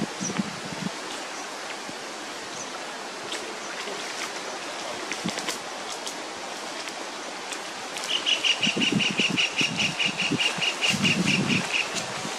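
Steady outdoor hiss, then about eight seconds in a bird starts a fast series of high chirps, several a second, that stops near the end. A few low muffled thumps sound among the chirps.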